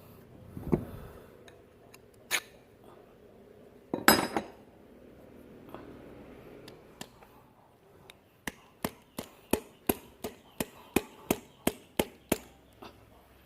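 Metal parts and tools clinking and knocking during work on a diesel fuel injection pump: a few separate knocks, a louder clatter about four seconds in, then a run of about a dozen sharp metallic taps, about three a second, in the second half.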